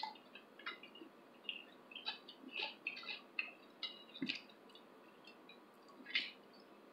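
Faint close-up eating sounds: small wet mouth clicks and chewing while a fajita taco in a soft flour tortilla is handled. There is a soft thump about four seconds in, and a slightly louder smack about six seconds in as fingers are licked.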